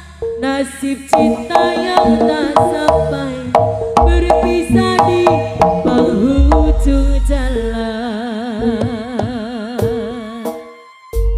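Jaranan band music: melodic notes over hand-drum strokes, then from about eight seconds in a long wavering held note that fades out just before the end.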